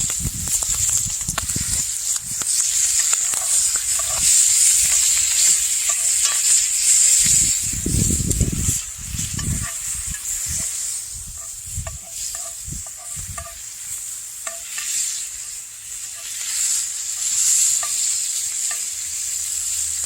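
Food sizzling and frying in a cast iron pan over an open fire, with scattered small ticks and some low thumps from handling.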